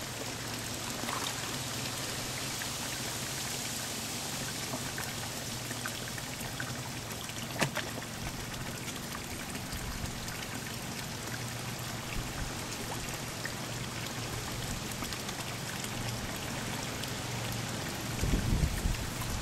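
Steady trickling and splashing of pond water as koi and goldfish feed at the surface. A single sharp click comes about halfway through, and low thumps come near the end.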